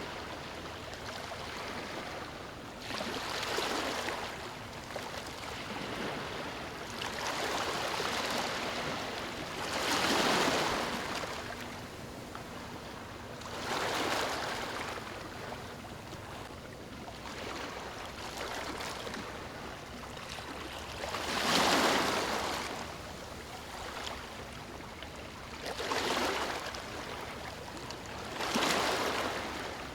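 Waves breaking and washing up a sandy beach in a continuous rhythm, with a louder surge every three to four seconds and the strongest near the middle and end.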